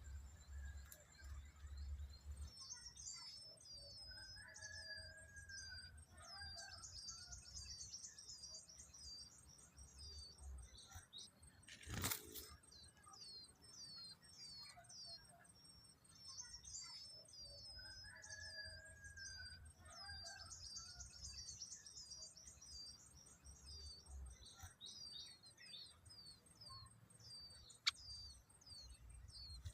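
Birds chirping: a dense run of rapid, high-pitched short chirps that starts a couple of seconds in and keeps going, with a lower whistled phrase heard twice. A single sharp thump about halfway through.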